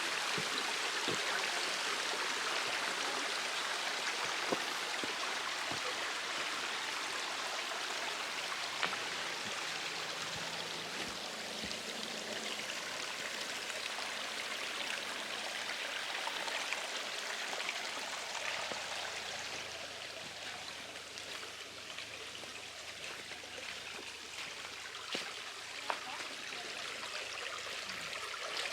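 Mountain stream babbling: a steady rush of flowing water that eases a little after the middle, with a few faint ticks over it.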